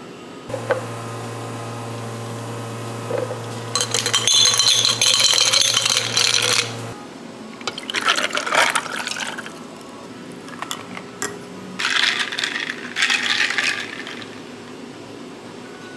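A machine hums steadily for about six seconds while water pours into a container, the pouring loudest over the last few seconds of the hum. Water then runs again in two shorter spells, with light clinks.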